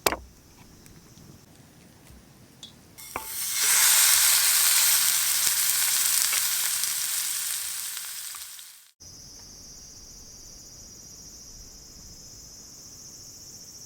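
Pork belly sizzling in a hot pan over a campfire. A loud sizzle starts about three seconds in, slowly fades and cuts off abruptly after about nine seconds, then a quieter, steady high sizzle follows.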